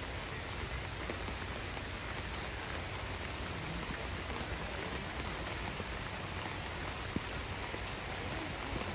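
Heavy rain pouring down steadily: a downpour.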